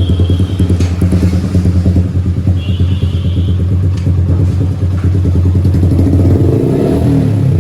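Suzuki Gixxer's single-cylinder engine running at a steady idle after a tappet adjustment, with a slight rise and fall in engine speed near the end.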